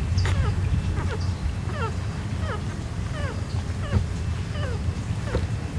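Miniature dachshund puppies squeaking while suckling from their mother: short, high, falling squeaks, about one or two a second, over a steady low rumble.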